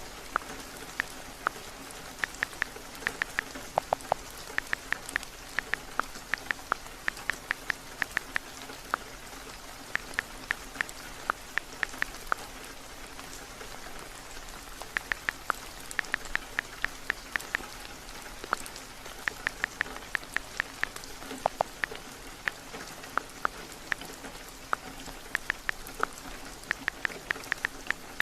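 Steady rain, with runs of quick, sharp taps, several a second with short pauses between runs: typing on a phone's on-screen keyboard.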